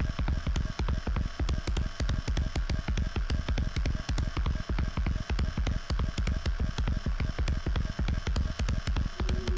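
Live electronic music: a dense, uneven stream of sharp digital clicks, several a second, over deep bass pulses, with no melody. Near the end, a held chord of low tones comes in under the clicks.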